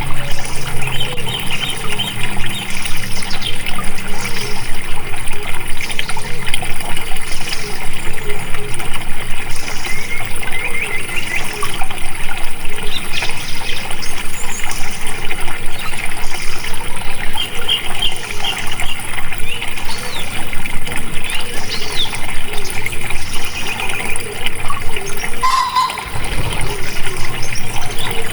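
Running water flowing steadily, with trickling and gurgling throughout and a brief break about 26 seconds in.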